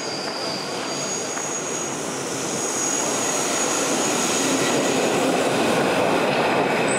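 Métro train running in a tiled tunnel: a steady rumble with a thin high whine, growing slowly louder.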